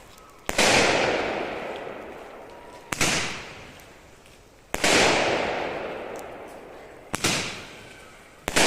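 Extreme blue bomb tube firing, a consumer firework: four loud sharp bangs about two and a half seconds apart, each a quick double crack followed by a long echoing tail, with a fifth bang at the very end.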